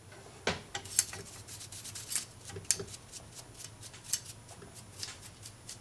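Light, irregular clicks, taps and faint scrapes of small parts being handled and cleaned by hand: the motor and rubber idler wheel of a vintage record changer.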